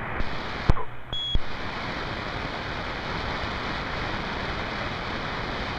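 CB radio receiver static: a steady hiss between transmissions, with a sharp click under a second in, a short high beep just after, and another click.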